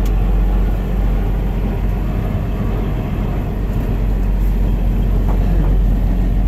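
1988 Mercedes-Benz Unimog's diesel engine running steadily as the truck drives slowly in third gear, heard from inside the cab as a loud, mostly low-pitched drone.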